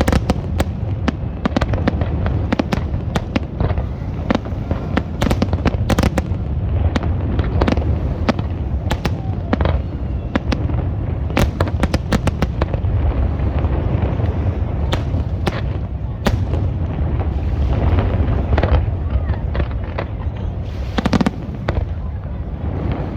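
Many sharp, irregular cracks and pops in quick succession over a continuous low rumble.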